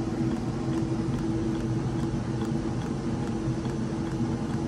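Inline greenhouse fan running steadily: a constant motor hum with a rush of air.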